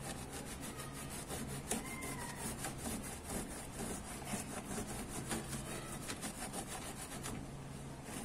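Microfibre cloth rubbed quickly back and forth against the plastic lower cover of a car's front bumper, a dry scrubbing sound of many short strokes. It is wiping off dirt before epoxy putty is applied.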